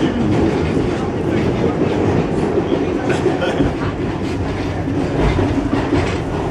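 New York subway car running, its steady rumble and wheel clatter heard from inside the car.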